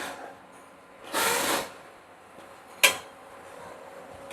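Nut-insertion station working on a door handle: a short burst of hiss lasting about half a second, about a second in, then a single sharp click near three seconds in.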